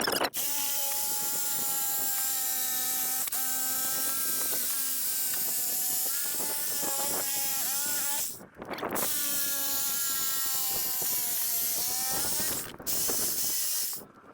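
Corded reciprocating saw (Sawzall) with a fine-tooth blade running steadily with a whining motor, cutting into a foam-filled tire. It stops briefly twice, about eight seconds in and again near thirteen seconds.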